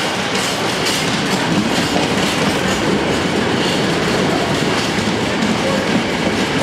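Loaded container wagons of a freight train rolling past, a steady loud rumble of steel wheels on the rails with clickety-clack as the wheels cross rail joints.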